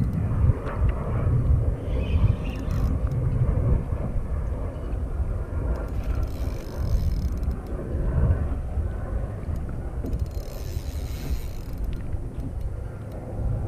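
Wind rumbling on the microphone while a spinning reel is cranked against a fish pulling on the line. Brief high buzzing stretches come and go three times.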